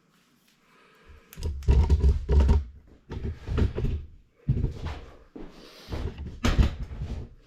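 Plastic housing of a carpet cleaner being handled as a drive belt is worked through it: four bursts of scraping and rubbing with dull knocks.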